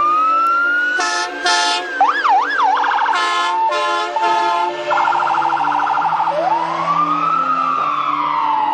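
Ambulance siren running through its tones: a rising wail, several short horn blasts, a fast warble and a rapid pulsing tone, then a long wail that rises and slowly falls away.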